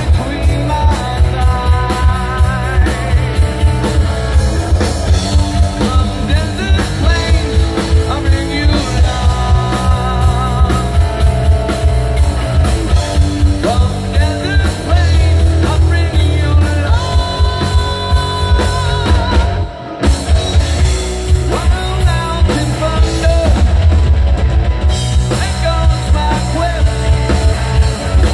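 Live rock band playing loud: two electric guitars, a drum kit and a singing voice. The music drops out for a moment about two-thirds of the way through, then comes back in.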